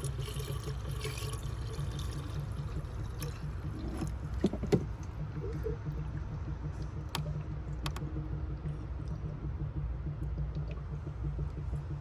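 Coolant poured into the engine's coolant reservoir over a low steady rumble, with a couple of sharp clicks about four and a half seconds in.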